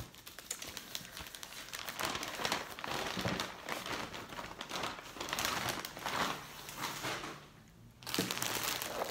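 Crinkling plastic packaging as a wrapped shirt is handled and unwrapped, with a short lull about three-quarters of the way through before the crinkling starts again.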